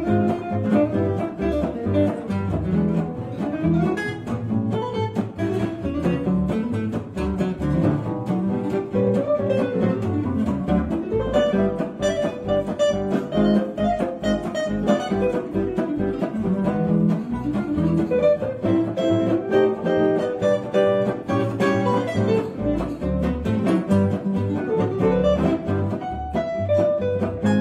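Live gypsy-jazz instrumental: an acoustic gypsy-jazz guitar picks a busy single-note solo over strummed rhythm guitars and double bass.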